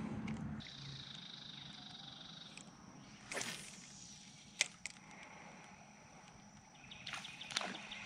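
Faint outdoor ambience with a steady high-pitched tone. A quick swish, typical of a fishing rod being cast, comes about three and a half seconds in, and a sharp click follows about a second later.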